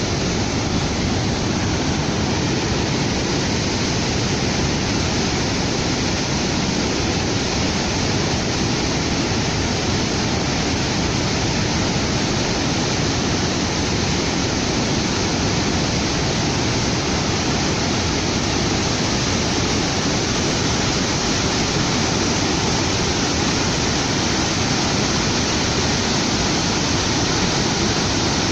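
The Rhine Falls, a large river waterfall: a steady, unbroken rush of falling water.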